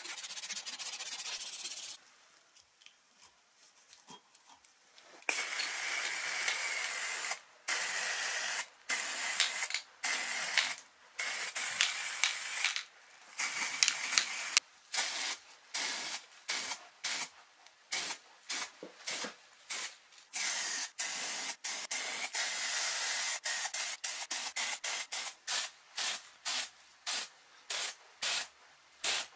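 Spray paint hissing in repeated bursts as the impact wrench's handle parts are painted grey. Long sprays at first, then shorter and quicker bursts, about two a second near the end.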